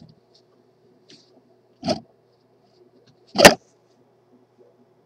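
Handling noise: two short rubbing bumps as fingers holding a metal transistor case brush against the close-up webcam, the second much louder, about a second and a half apart. A faint steady hum runs underneath.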